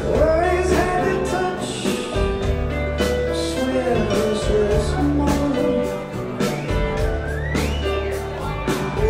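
Southern rock jam band playing live, with drums, a bass line and singing.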